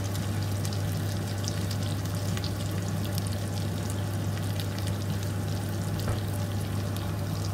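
Sliced onions and chopped garlic frying in hot oil in a pan: a steady sizzle with many small crackling pops, over a constant low hum.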